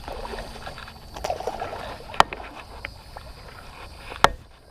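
Two sharp knocks on a fishing kayak, the second louder with a low thump, over a steady low rumble of wind and water.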